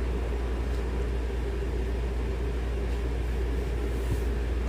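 Steady low rumble and hum, even in level throughout, with nothing distinct standing out.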